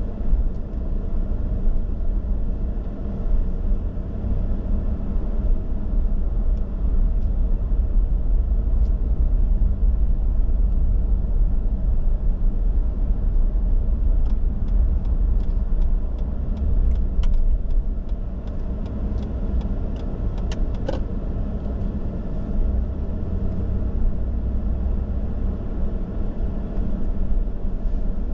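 A car being driven: a steady low rumble of engine and road noise, with a run of small sharp clicks or rattles from about halfway to three-quarters of the way through.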